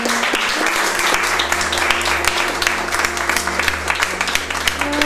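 A small audience applauding: many pairs of hands clapping irregularly.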